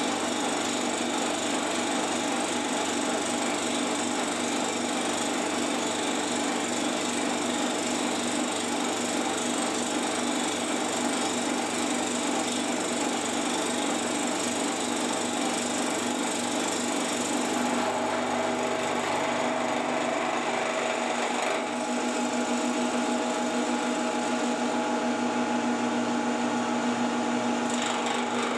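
Milling machine spindle running with an end mill cutting a flat on a metal part, a steady grinding machining noise over the motor's hum. About two-thirds of the way through the cutting noise thins as the cutter clears the workpiece, leaving the spindle's steady hum.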